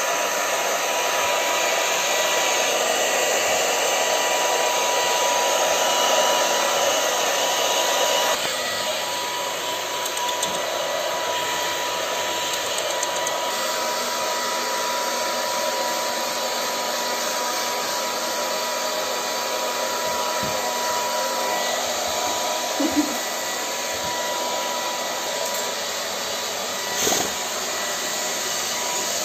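Handheld hair dryer blowing steadily with a thin, steady whine as it dries a wet boxer dog's coat. The level dips slightly about eight seconds in, and there is a brief knock near the end.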